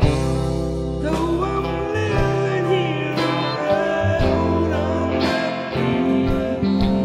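Live band music: a harmonica played into a handheld microphone cupped in both hands, its notes bending up and down, over bass and guitar.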